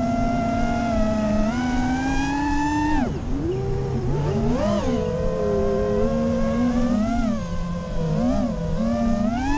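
FPV freestyle quadcopter's brushless motors (T-Motor 2305 2450kv) whining, the pitch rising and falling as the throttle changes. About three seconds in the pitch drops sharply as the throttle is chopped, then climbs again, over a low rushing noise.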